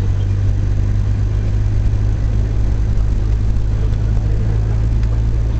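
Vehicle engine and road noise heard from inside the cabin while driving: a steady low drone with no change in pitch.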